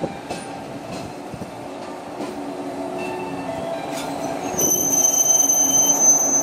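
Series 115 electric multiple unit rolling slowly into a station, its cars rumbling and humming past. About four and a half seconds in, a high-pitched squeal starts and holds for about two seconds as the train brakes to a stop.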